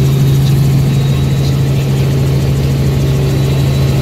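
Helicopter in flight, heard from inside the cabin: a loud, steady drone with a strong deep hum and a faint high whine above it.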